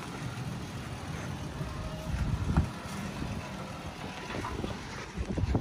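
Toyota Tacoma pickup's engine running at low speed as the truck crawls up a dirt mound, with wind buffeting the microphone.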